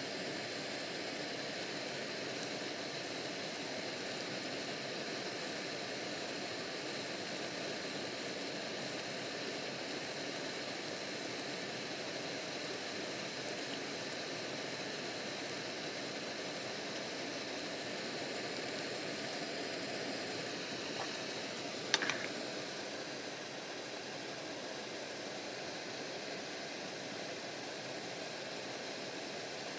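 Steady hiss from a gas stove burner under a pan of simmering split pea stew, with one sharp knock about 22 seconds in.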